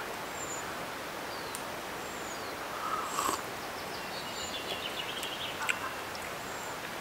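Woodland birds calling over a steady background hiss: several short, high, falling chirps and a quick trill of short notes a little past halfway. A brief louder noise comes about three seconds in.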